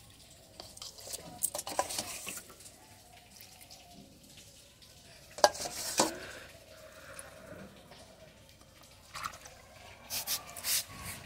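Water poured by hand from a plastic mug onto potted soil and from a steel bowl into the mug: faint splashes and trickles with a few light knocks of the mug against the steel bowl, busiest near the end.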